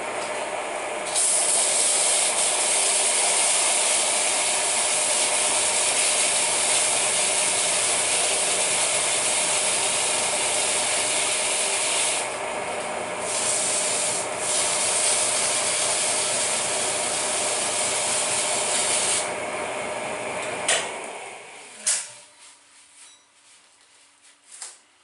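Test-stand electric motor spinning its bearing surface while it is polished by hand, a steady hissing scrape over the motor's steady tone. The scraping eases off twice briefly about halfway through and stops near the end. The motor then winds down, with a couple of clicks.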